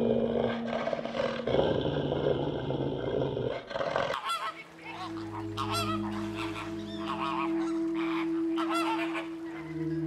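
Flamingos honking, goose-like calls coming in short repeated runs from about four seconds in, over a steady low drone. Before that, a dense noisy hiss.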